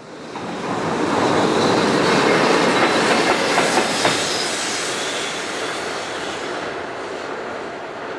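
A train passing close by: a dense rumble of wheels on rail with clacks over rail joints and a faint high wheel squeal. It swells quickly in the first second and slowly fades over the last few seconds.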